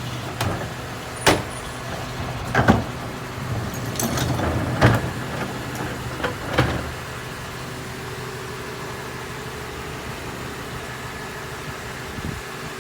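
Mini New Way rear-loader garbage truck packing trash: a handful of sharp clanks and knocks over the first several seconds, then the truck running steadily.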